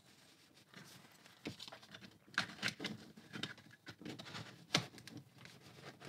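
A spudger prying at the snap-fit seam of a small plastic remote control housing: irregular light scraping and several sharp plastic clicks, the loudest nearly five seconds in.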